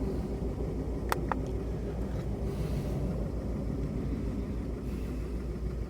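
Mk4 VW Golf petrol engine idling roughly with a misfire on one cylinder, caused by a faulty ignition coil. Two brief clicks sound about a second in.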